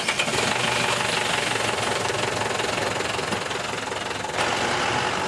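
Diesel engine of a skip lorry running steadily close by, with a change in its sound about four seconds in.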